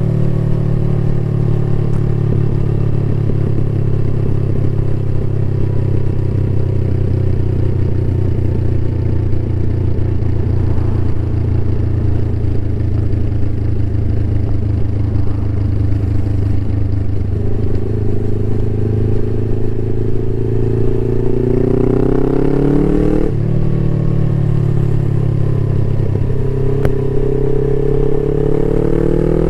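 Suzuki GS500E's air-cooled parallel-twin engine through a Takkoni aftermarket exhaust while riding. It runs at a steady cruising note, then revs rise under acceleration, with a sudden drop at a gear change about 23 seconds in and revs climbing again near the end.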